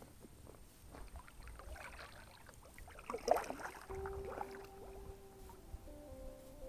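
Kayak paddle strokes on flat calm water: soft dips, splashes and drips, the loudest splash a little after three seconds in. About four seconds in, soft long-held musical tones begin and step between a few notes.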